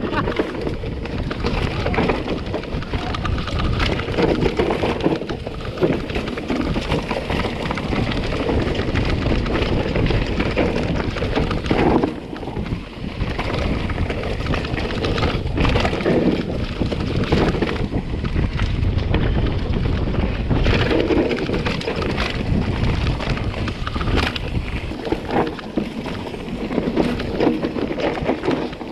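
Mountain bike being ridden over a rough trail: wind buffeting the microphone and tyres rolling on dirt and rock, with frequent knocks and rattles from the bike.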